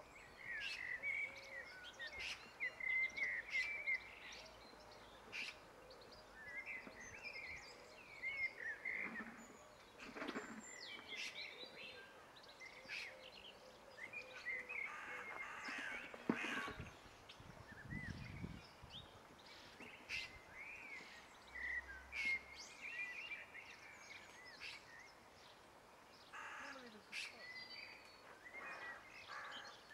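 Small birds chirping and twittering in short repeated calls, over a faint background, with a few light knocks and rustles of tools and paper being handled.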